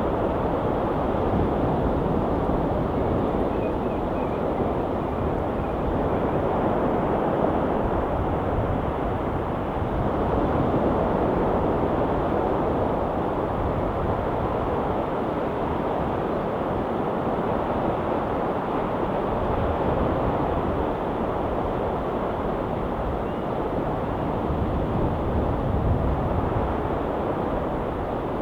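Ocean waves washing ashore: a steady, low rumble of surf that swells and eases a little.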